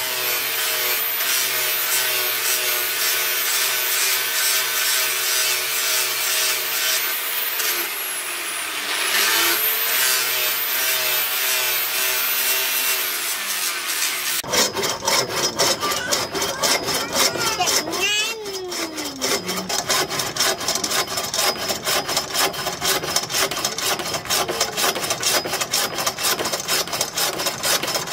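Electric angle grinder with a sanding disc running against the steel blade of a knife, its pitch briefly dropping and recovering about a third of the way in. About halfway through it cuts to a hacksaw sawing in quick, even back-and-forth strokes.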